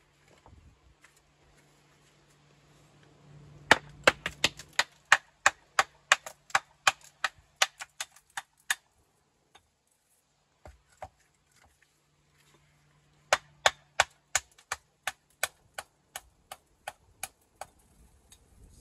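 Hammer dressing a building stone: two runs of sharp strikes, about three a second, each run lasting around five seconds.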